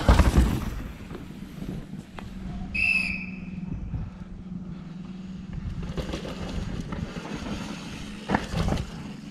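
A downhill mountain bike passes close, its tyres ripping through loose dirt, then a short whistle blast about three seconds in. Near the end a second bike comes through over rough ground, with sharp knocks from the wheels and suspension.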